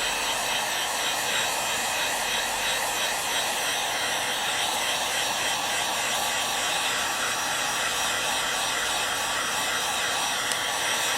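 Hand-held hot-air dryer blowing steadily with a faint whine, drying freshly applied sealer on a leather repair.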